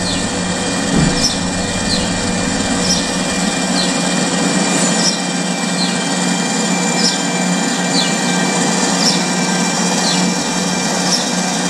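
Wire-feed drive motor of a Miller Millermatic 180 Auto-Set MIG welder running steadily with the gun trigger held, pushing new welding wire through the gun's liner, with faint high ticks roughly twice a second.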